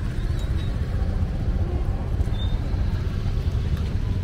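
Steady low rumble of slow road traffic close by: car and motorbike engines idling and creeping past.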